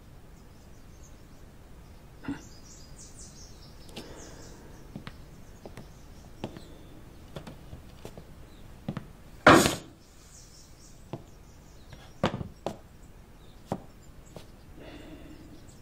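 Footsteps and knocks on bare wooden floorboards, irregular, with the loudest knock a little over halfway through and a few lighter ones after it, over faint bird chirps.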